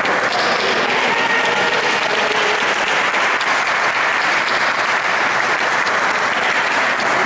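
Spectators applauding steadily, with some voices mixed in.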